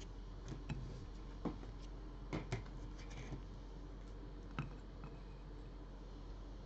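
A handful of soft, separate plastic clicks and taps as trading cards in rigid plastic holders are set onto clear acrylic display stands, two close together about two and a half seconds in. A faint steady low hum runs underneath.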